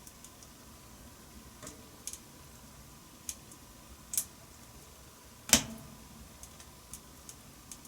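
Wood fire crackling in a wood-burning stove: irregular sharp pops and snaps over a faint steady hiss, the loudest pop about five and a half seconds in.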